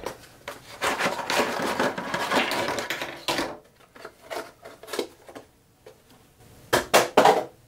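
A cardboard box being opened and emptied: rustling and scraping of the packaging for about three seconds, then light clattering as the test leads and probes are laid on a wooden workbench, with a few sharper knocks near the end.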